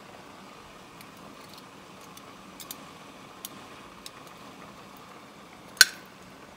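Stainless steel kitchen tongs tapping and clinking against a ceramic plate and a metal pot as chicken tenders are moved: a few light clicks, then one sharp clink with a brief ring near the end.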